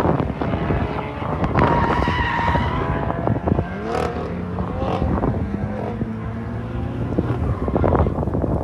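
BMW M4's twin-turbo straight-six revving up and down as the car drifts, its spinning rear tyres squealing, with a long held squeal between about one and a half and three seconds in.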